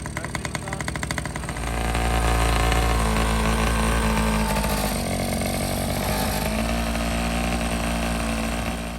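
X7 pocket bike's small two-stroke engine running, with rapid, even firing. It gets louder about a second and a half in as it revs up, then holds steady.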